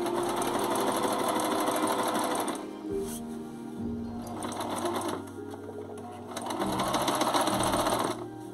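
Singer Simple electric sewing machine stitching fabric in two runs: one for the first two and a half seconds or so, then after a pause a second, shorter run that starts a little past the middle and stops shortly before the end.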